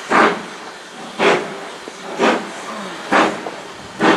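Steam locomotive exhaust chuffing slowly and evenly, about one sharp beat a second, with a steady hiss between the beats.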